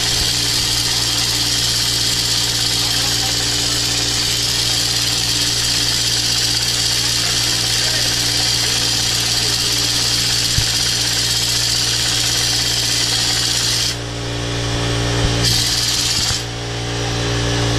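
Pneumatic tool on the top of a front strut and coil spring assembly running steadily with a constant hum and air hiss. It eases off about 14 seconds in, runs again in a short burst, and eases off once more near the end.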